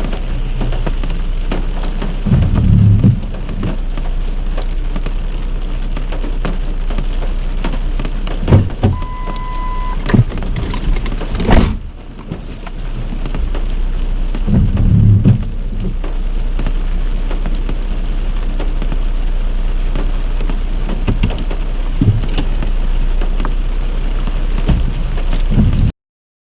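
Heavy rain pouring steadily, with two low rumbles, a short beep near the middle and a sharp knock soon after. The sound cuts off abruptly just before the end.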